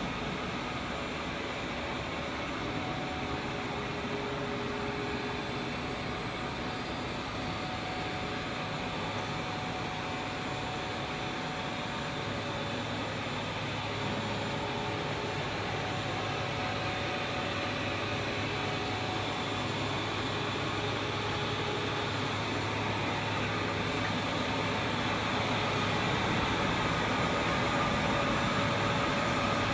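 Plastic film extrusion machine running: a steady mechanical whirr and hum from its motors and rollers, with faint steady tones over an even noise, getting a little louder near the end.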